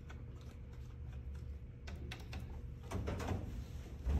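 Buttons on a snack vending machine's keypad being pressed: a run of light clicks, with louder knocks about three seconds in.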